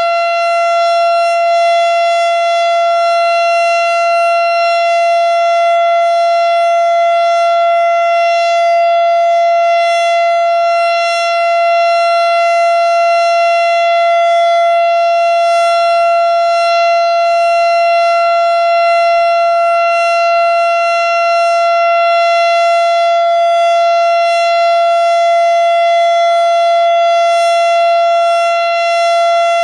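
Federal Signal STH-10 single-tone outdoor warning siren sounding its steady full-alert signal. It holds one loud, unchanging pitch with no rise or fall.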